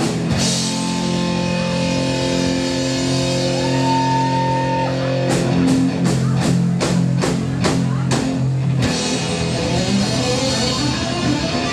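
Live hard rock band playing loud: distorted electric guitars, bass and drums. Held chords ring for about five seconds, then the band hits a run of accented stabs about three a second, and near the end it moves into a busier section.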